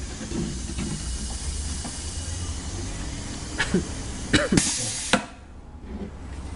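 Pneumatic piston filling machine running a dose: a steady hiss of air, then a louder rush of air about four and a half seconds in that cuts off sharply with a click just after five seconds.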